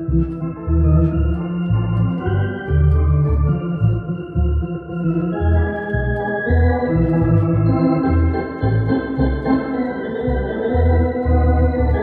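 Viscount Legend digital drawbar organ playing an up-tempo tune: held chords and a melody over a steady beat of short bass notes, about two to three a second.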